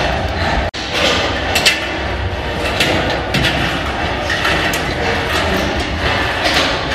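Work boots knocking and clanking on the metal rungs of a wind turbine tower's fall-arrest ladder as a worker climbs, with several sharp knocks. A steady rumbling hum fills the tower behind them.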